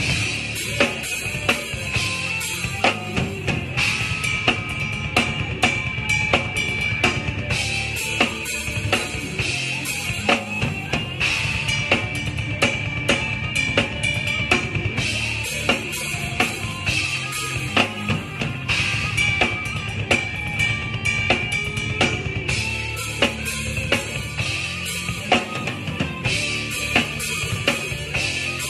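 Drum kit played through a song: snare and bass drum hits with cymbal wash, keeping a steady beat.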